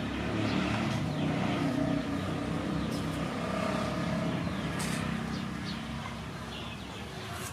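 Motor vehicle engine running, getting quieter in the second half.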